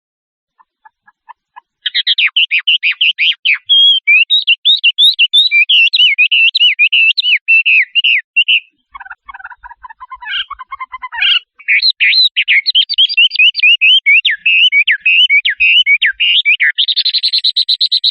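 Shrike singing a long, fast run of varied notes. About halfway through comes a lower chattering passage, then a rapid, evenly repeated harsh note near the end.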